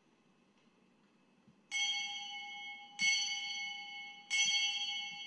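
A bell struck three times, a bit over a second apart, the first about one and a half seconds in; each stroke rings on with several steady tones and fades slowly.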